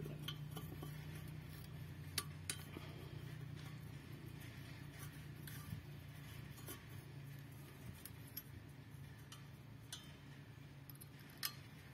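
Sparse light metallic clicks and clinks of parts being handled, over a faint steady low hum.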